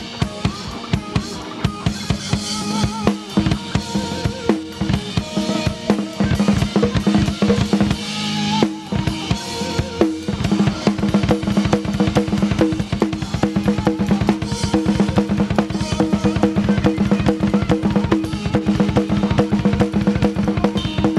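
Live rock band: drum kit playing fast, busy patterns of kick, snare and cymbals under held electric guitar and bass notes, with a brief fill about halfway through.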